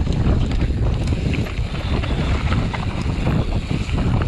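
Wind buffeting the microphone while moving at speed: a loud, steady low rumble with scattered small clicks and rattles.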